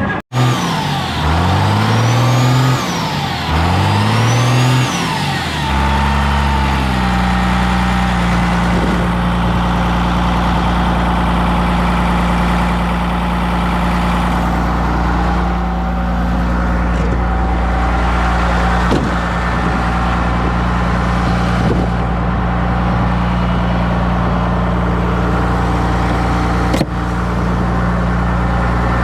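Truck engine running: revved up and back down twice, then settling into a steady idle.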